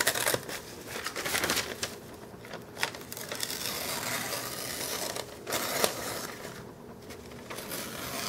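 Kershaw Skyline pocket knife push-cutting thin phonebook paper, the paper rustling and crinkling in the fingers in irregular bursts as the blade slices through without snagging.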